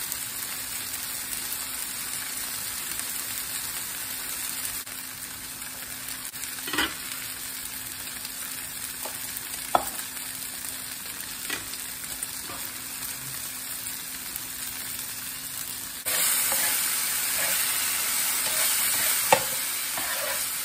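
Fajita vegetables sizzling steadily on a hot griddle, getting louder about three-quarters of the way through, with a few light knocks from a knife dicing tomatoes on a cutting board.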